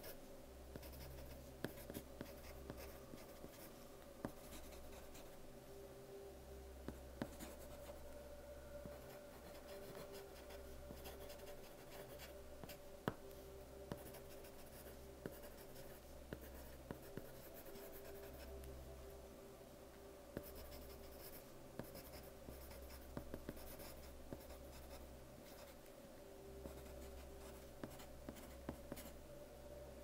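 Soft-lead pencil writing on paper: quiet scratching strokes with frequent small ticks as the lead meets the page.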